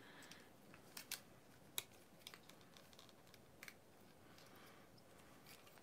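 Faint, scattered clicks of plastic joints and parts on a Transformers F-14 Tomcat figure being moved and snapped into position by hand, the sharpest about a second in and just before two seconds.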